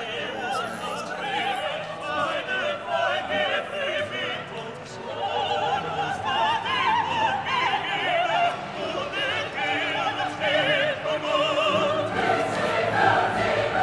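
Classical operatic singing: several voices with strong vibrato, with orchestral accompaniment.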